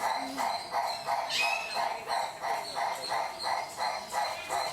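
Livingstone's turaco calling: a long, even series of short, harsh barking notes, about three a second.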